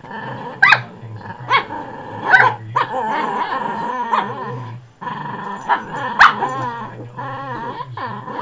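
Poodle puppies squabbling over a bone treat: long wavering growls and grumbles, broken by several sharp, loud yapping barks.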